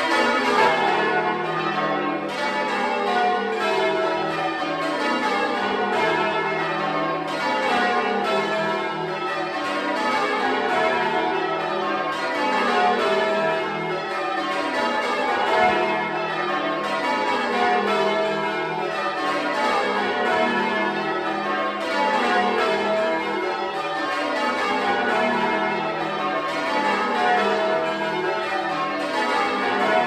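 A ring of ten church bells rung full-circle in rounds, heard close up in the bell chamber. Each row is a descending run from the treble down to the tenor in E, and the rows repeat steadily every two seconds or so, the strikes ringing on into one another.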